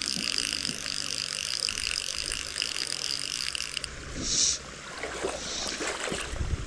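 Fly reel's click-and-pawl ratcheting steadily as line is reeled in on a hooked trout, stopping abruptly about four seconds in. A short hiss follows just after.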